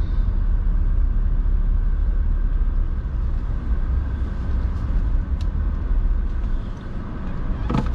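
Car running, heard from inside the cabin: a steady low engine and road rumble, with a few faint ticks.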